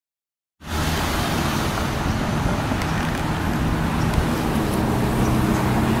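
Dead silence for about the first half second, then steady road traffic noise with the even low hum of a vehicle engine.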